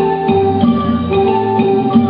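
Traditional Thai dance music played on mallet percussion, a melody of ringing struck notes.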